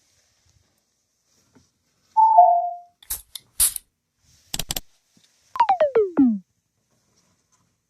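Electronic control-panel tones of a laundry machine: a short falling two-note chime, a few sharp clicks, then a pulsing tone that glides steeply down in pitch.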